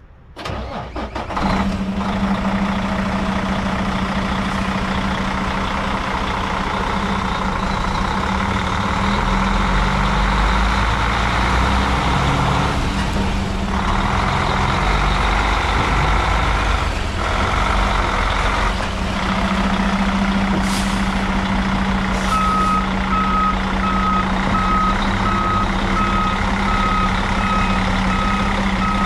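Heavy diesel dump truck engine starting, then running at a steady idle. About three quarters of the way through a backup alarm begins beeping steadily, about one and a half beeps a second.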